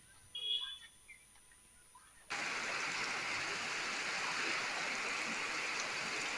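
Heavy rain pouring down, a steady dense hiss that starts abruptly a little over two seconds in. Before it there is only a short high-pitched squeak about half a second in.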